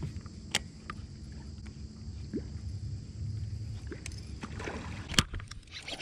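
A topwater fishing lure splashing on the water's surface as it is worked on a spinning rod. There are a few sharp splashes, the loudest about five seconds in, over a low steady rumble.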